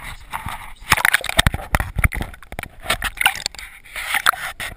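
Water splashing and churning over a GoPro camera as it plunges into the sea from a tipping banana boat, with many rapid knocks and crackles as water hits the camera housing.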